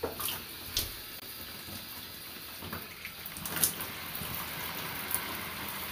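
Shower running: a steady spray of water, with a few short clicks over it.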